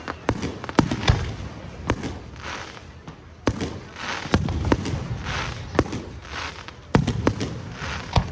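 Aerial fireworks going off: a string of sharp booms at irregular intervals, a dozen or more, with crackling and hissing from the bursting shells between them.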